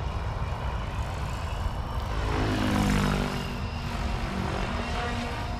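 Electric SAB Kraken 580 RC helicopter flying at a low head speed of about 1500 RPM: a steady rotor and motor hum with a whine whose pitch bends, swelling to its loudest about three seconds in.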